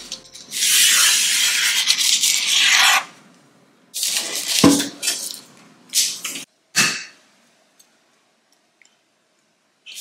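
A pen scratching on parchment paper in a long continuous stroke, tracing a circle on a metal baking tray. Then parchment paper rustling in several short bursts as it is flipped over, with a dull knock of the tray about halfway through.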